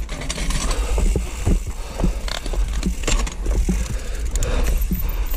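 Mountain bike eased slowly down a rock slab, its frame, chain and tyres knocking and rattling irregularly on the rock, with the rear hub's freewheel ticking as the wheels roll.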